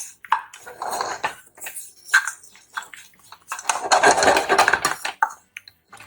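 Spatula stirring toasting oats, nuts and dried berries in a pan, with irregular clinks and scrapes and a longer, denser stretch of scraping about four seconds in.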